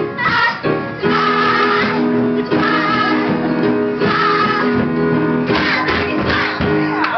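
A group of voices singing a show tune with accompaniment. They hold one long note from about a second in, then sing a few shorter notes near the end.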